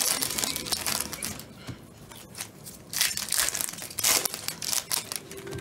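Trading card pack wrappers crinkling and cards being handled as basketball card packs are opened: irregular bursts of crinkling, fainter for a second or so in the middle.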